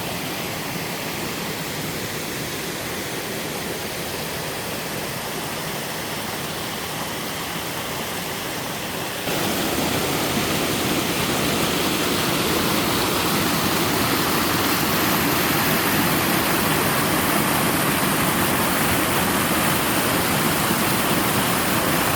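Mountain waterfall rushing steadily over rock, its water noise stepping up suddenly to a louder, fuller rush about nine seconds in.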